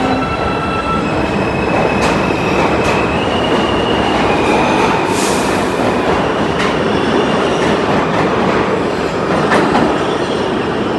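New York City subway train running on the rails: a steady loud rumble with thin wheel squeals, scattered clicks over the rail joints, and a brief hiss about five seconds in.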